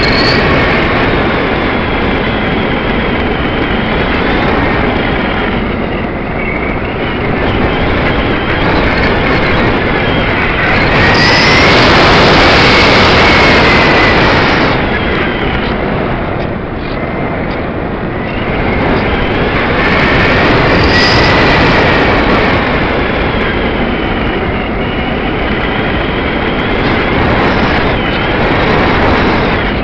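Wind rushing over a keychain camera's microphone taped to the wing of a ParkZone Radian electric glider in flight, with a whine that rises and falls in pitch. The rush swells loudest about eleven to fourteen seconds in.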